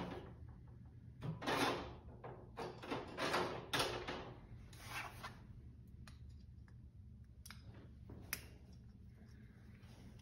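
Hand tools working on a small snowmobile carburetor to pull out a jet. There are several short rustling scrapes in the first half, then two sharp metal clicks near the end.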